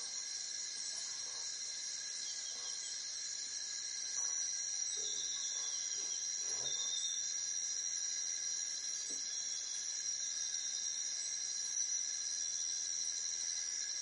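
A steady, high-pitched insect chorus that grows a little louder about four seconds in, with a few faint short chirps a second or two later.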